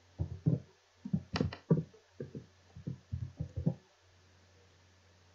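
Computer keyboard typing: about fifteen quick, irregular keystrokes over nearly four seconds as a name is typed in. After that there is only a faint low hum.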